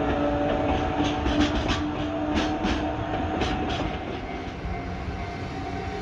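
Freight train of container wagons rolling past, its wheels clacking over the rail joints in quick pairs about once a second over a steady rumble, the clacks dying away near the end.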